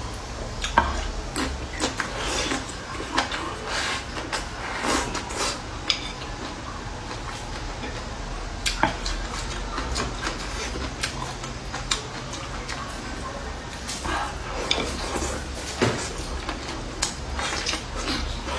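Chopsticks and tableware clinking against bowls and plates during a meal: irregular light clicks and knocks, some a few seconds apart and some in quick clusters.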